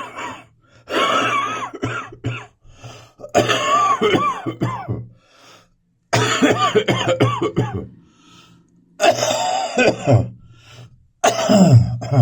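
A person's chest cough in about five fits, each a second or two long, with short pauses for breath between them: a morning cough from bronchitis.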